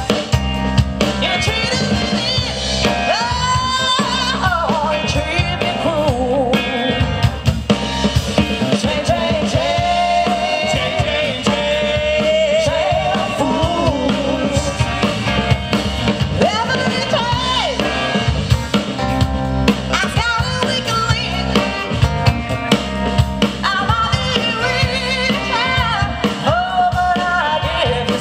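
Live soul band playing: drum kit with snare and bass drum keeping a steady beat under electric guitar and bass, with a wavering lead melody from the singer and saxophone on top.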